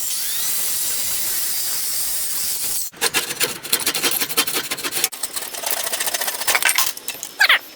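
A saw cutting through a pine board: a steady hissing cut, then after a short break a rapid, uneven rasping through the wood.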